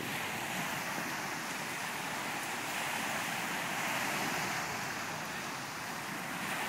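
Small waves breaking and washing up on a sandy shore: a steady surf hiss that swells a little around the middle.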